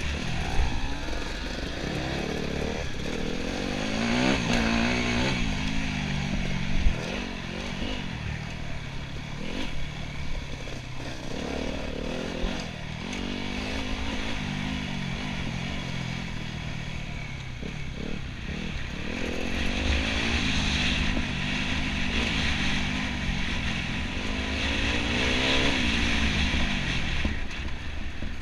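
Enduro motorcycle engine revving up and down continuously as the bike is ridden along an off-road course, with rattles and one sharp knock about seven seconds in.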